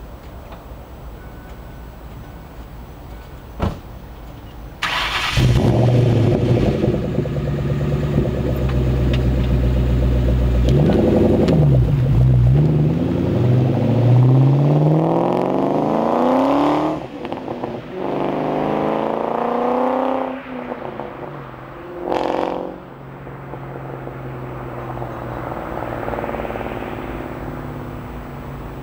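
1996 Mustang SVT Cobra's 4.6-litre DOHC V8 through a Borla XR1 cat-back exhaust and an off-road H-pipe. It jumps in loudness about five seconds in and runs, then pulls away under hard acceleration, the pitch rising through two gears with a break at each shift, and fades as the car drives off.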